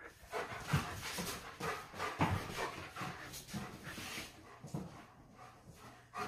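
German Shepherd dog panting in quick, uneven breaths, easing off near the end.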